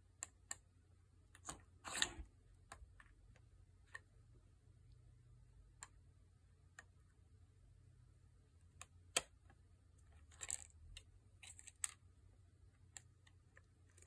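Scattered clicks and clatters of the plastic pieces of a cat treat puzzle board being nosed, knocked and flipped by a cat, over a faint low hum. The loudest clatter comes about two seconds in, a single sharp click about nine seconds in, and a quick run of clicks about ten to twelve seconds in.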